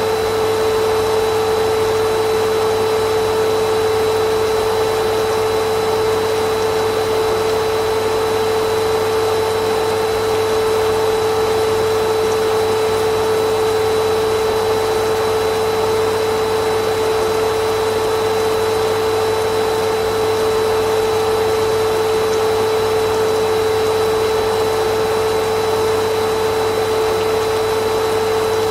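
Vacuum cleaner running steadily, a constant motor whine over an even rush of air, with no change in pitch or loudness.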